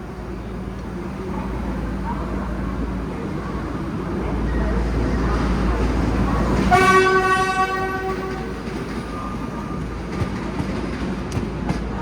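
Alstom Comeng electric suburban train sounding its horn in one blast of about a second and a half, past the middle, over the steady low rumble of the train pulling away. A few sharp clicks come near the end.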